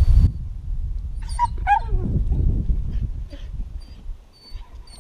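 Dog whining, with a couple of short high yelps that drop in pitch about a second and a half in and a fainter whine later on.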